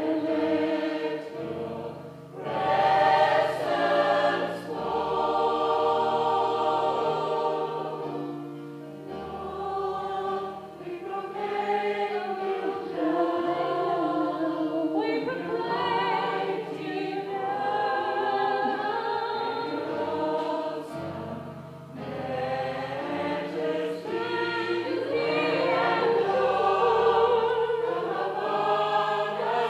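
Gospel choir singing in several-part harmony, with held chords over a steady low part.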